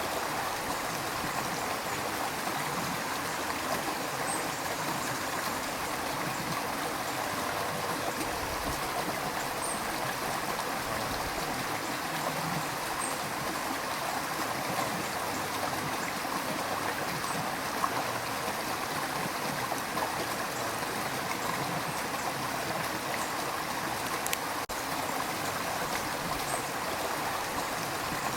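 River water rushing steadily over rocks, a constant even rush with small gurgles.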